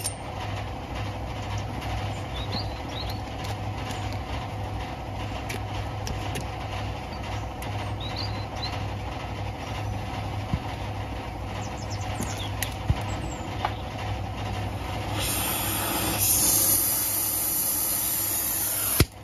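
Oxy-acetylene cutting torch: a strong hiss of gas and flame starts about three-quarters of the way in and grows louder a second later, then cuts off with a sharp pop near the end. Under it sits a steady low hum.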